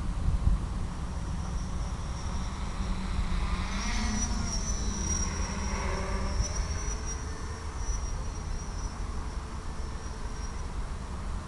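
Crickets chirring steadily at a high pitch over a low outdoor rumble. Around four to six seconds in, a brief whine rises and falls.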